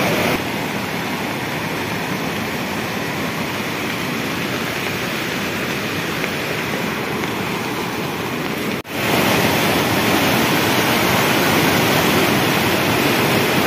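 Muddy floodwater of a rain-swollen mountain stream rushing over rocks, a steady loud rush of water. It cuts out for a moment about nine seconds in and comes back a little louder.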